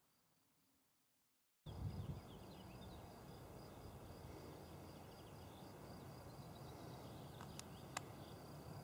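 Near silence for about a second and a half, then a steady outdoor hiss and low rumble with insects chirping in a high, steady pulsing trill. A single sharp click comes near the end.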